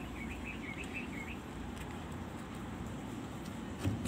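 A bird gives a quick run of about five short high chirps in the first second and a half, over steady low background noise. A single sharp knock comes near the end.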